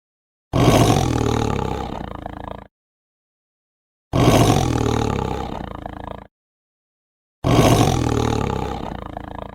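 An animal roaring three times, each roar about two seconds long, starting loud and fading away, with dead silence between them.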